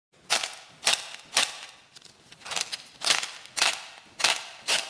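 Croissant-shaped slime squeezed and pressed between fingers, giving eight sharp crackling pops about half a second apart, with a pause of about a second after the third.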